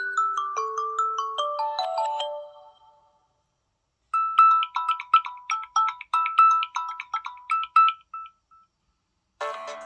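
Samsung Galaxy A12 ringtones playing. The first is a melody of short notes stepping downward that ends about two and a half seconds in. After a second's pause, a quick two-note ring pattern repeats for about four seconds. A fuller, denser ringtone starts near the end.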